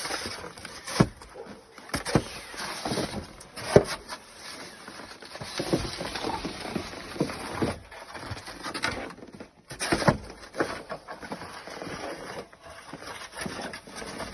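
Frozen snow being crunched and scraped in an irregular run, with several sharp knocks spread through it.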